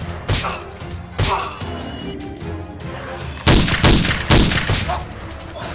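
Background music with a series of thumps and whacks: single hits about a third of a second and a second in, then five or six in quick succession from about three and a half seconds in.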